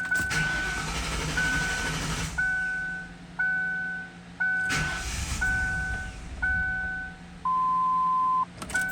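1995 Lincoln Town Car's 4.6L V8 on a cold start: the starter cranks over the first two seconds and briefly again about five seconds in before the engine settles into running, showing the car's hard-starting-when-cold problem. Throughout, the car's warning chime dings about once a second, then gives one longer, lower tone near the end, followed by quicker dings.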